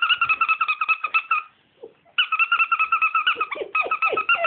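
Scottish Deerhound puppies whining in quick, high-pitched squeaks, about nine a second, in two bouts with a short break about a second and a half in. Near the end, lower falling whimpers join in.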